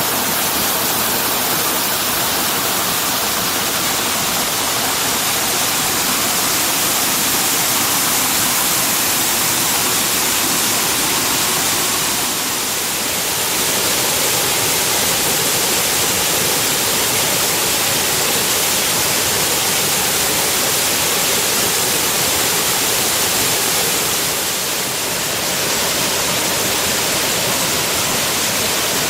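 Waterfall: a steady, loud rush of falling water, easing slightly twice for a moment.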